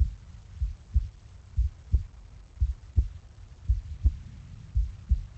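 Heartbeat, a steady lub-dub at about one beat a second: paired low thumps, the first from the tricuspid and mitral valves snapping shut, the second from the aortic and pulmonary valves closing.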